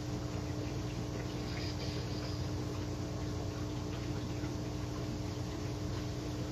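Steady background hum with a constant low tone and a few faint ticks.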